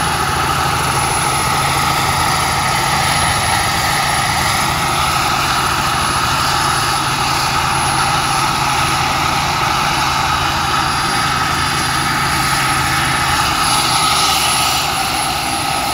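Large radio-controlled scale model of an AH-1 Super Cobra helicopter running on the ground during its start-up, rotor turning: steady engine noise under a high whine. A mid-range tone in the sound sinks in pitch a few seconds in and climbs again near the end.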